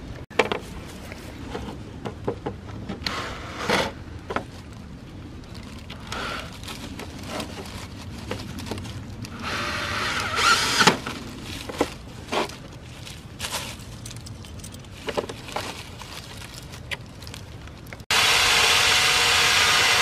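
Cordless drill spinning a hole saw through an aluminum panel sandwiched between plywood sheets. There is a short cutting spell about halfway through and a loud, steady run of cutting that starts abruptly near the end. Scattered clicks and rustling from handling the tool and panel fall in between.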